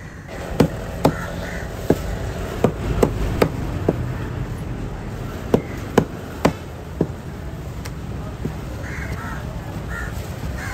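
Cleaver chopping a yellowfin tuna loin into cubes on a thick wooden board: about a dozen sharp, irregular knocks of the blade hitting the wood over the first seven seconds. Near the end, crows caw several times.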